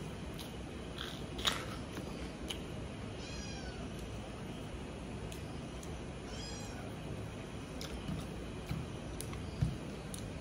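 Eating by hand and chewing: a few soft mouth clicks and smacks over a steady room hum, with two short, high, wavering calls, one about three and a half seconds in and one about six and a half seconds in.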